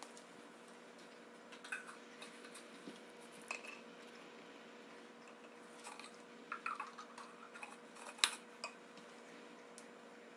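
Chinese mantis chewing on a wolf spider: faint, irregular crunching clicks, the loudest about eight seconds in, over a steady low electrical hum.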